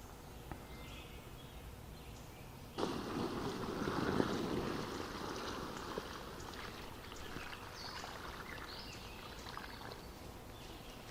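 A sudden rush of noise starts about three seconds in and slowly fades over a few seconds. Small birds chirp faintly throughout.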